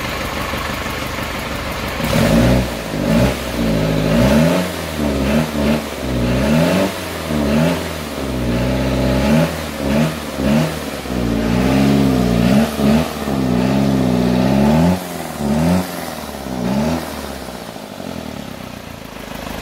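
Toyota 14B four-cylinder diesel engine idling, then revved in quick repeated throttle blips roughly once a second for about fifteen seconds, each rising and falling in pitch. It settles back to idle near the end.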